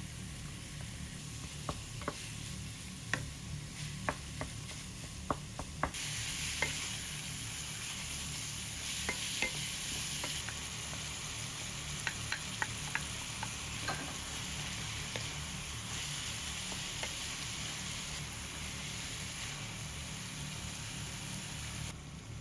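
Food sizzling in a frying pan while it is stirred, with sharp taps of the utensil against the pan. The sizzle gets louder about six seconds in and eases off near the end, over a steady low hum.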